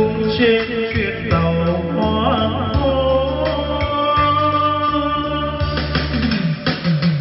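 Karaoke played through a Sansui SG3-15 portable trolley speaker: a man's voice sings over a backing track with bass and guitar, holding one long note in the middle. Near the end the voice stops and strummed guitar from the backing track carries on.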